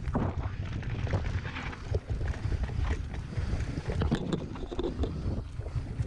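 Wind buffeting an action camera's microphone during a mountain-bike trail ride, a gusty low rumble. Irregular clicks and knocks come through from the tyres and bike running over rough dirt.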